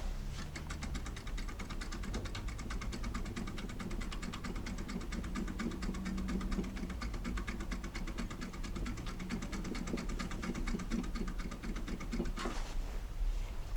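Foil lockpick tool being worked in an Iseo door cylinder: rapid, even metallic clicking as the pick is jiggled in the lock, ending in a single louder click near the end.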